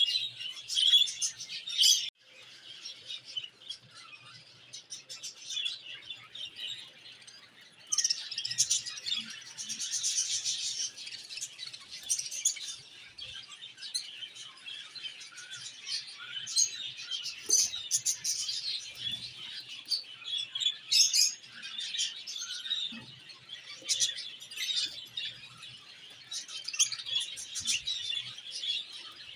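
A flock of budgerigars chattering and chirping together in a continuous high warble, thinning briefly about two seconds in and growing denser a few seconds later.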